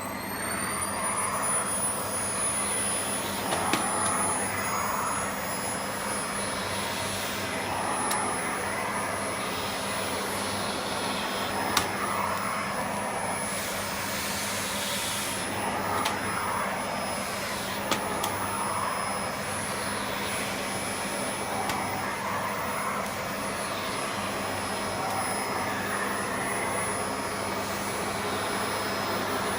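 Vacuum cleaner running steadily with a high whine and a low hum. Its rushing air swells and eases every second or two as the nozzle is drawn over a cat's fur, with a few sharp clicks.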